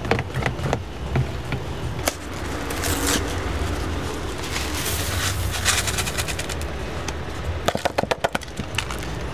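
Food-prep handling noise: a small cardboard packet of chopped chives opened and shaken out over a plastic tub, with a quick run of rattling taps near the end, over a steady low hum.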